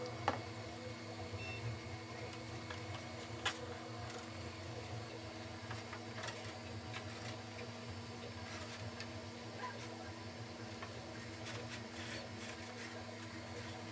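Steady low hum of a 3D printer running, with a few light clicks from the printed plastic parts being handled.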